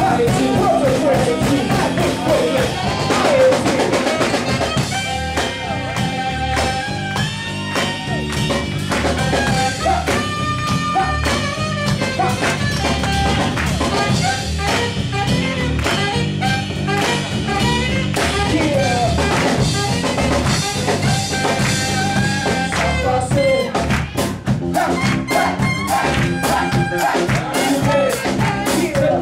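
Live band playing jazz-tinged music: a saxophone carries long held notes over a drum kit and amplified backing, with the drums coming to the fore near the end.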